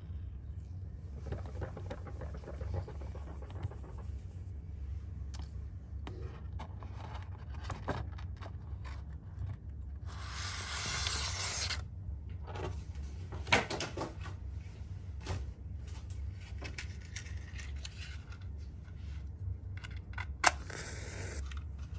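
A steady low hum with scattered light clicks and taps, and a short hiss about ten seconds in. Near the end a wooden match is struck, a sharp snap followed by about a second of flaring hiss.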